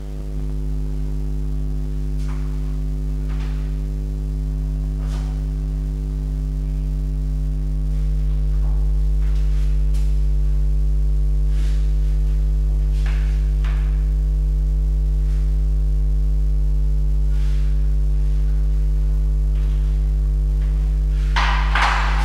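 Steady electrical mains hum, a low buzz with a stack of overtones, with scattered faint knocks and a louder noise near the end.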